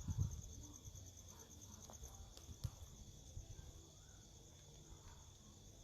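Crickets chirping steadily in a fast, even pulse, with a few faint ticks in the middle.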